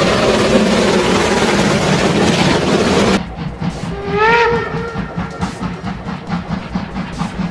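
Steam train passing hard, a loud steady rush of exhaust and running noise that cuts off abruptly about three seconds in. A steam locomotive's whistle then sounds once, a short blast bending slightly upward, followed by the locomotive's exhaust chuffing in an even rhythm of about three to four beats a second.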